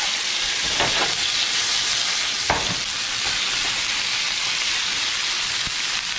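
Gafftopsail catfish fillets frying in smoking-hot olive oil in a nonstick pan: a steady sizzle, with a few light knocks as the fillets are laid in and moved about.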